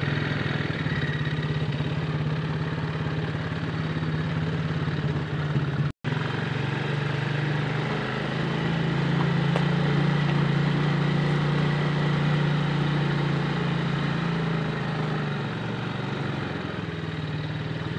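ATV engine running steadily while riding along, a little louder in the middle stretch and easing off near the end. The sound drops out for an instant about six seconds in.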